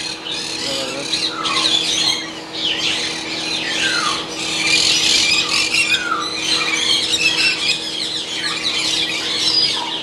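Many caged parrots, lories among them, calling over one another in a continuous chorus of short rising and falling squawks. A faint steady low hum runs underneath.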